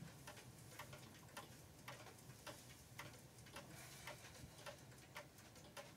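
A clock ticking faintly and evenly, about two ticks a second, in near silence.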